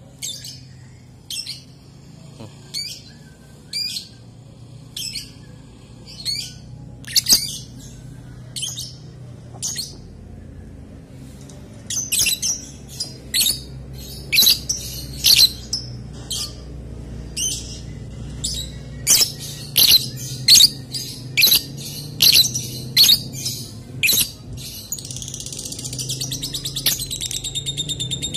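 Fischer's lovebird chirping: sharp, high single chirps about once a second, coming thicker and louder after about twelve seconds, then running into a continuous fast rattling trill for the last few seconds.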